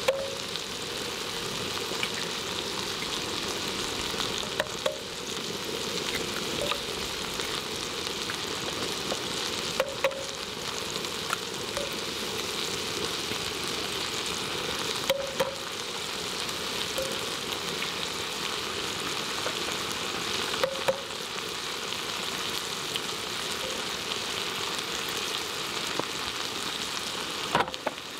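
Food frying in a pan with a steady sizzle, broken by a brief knock or clink every few seconds.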